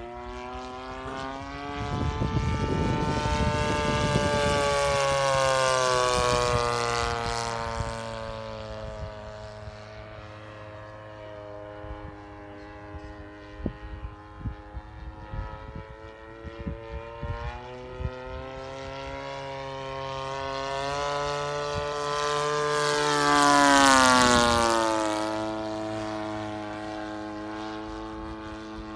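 Hangar 9 Corsair radio-controlled model airplane flying passes, its propeller motor running steadily. The pitch rises as it approaches and drops as it goes by, twice; the second, loudest pass comes near the end.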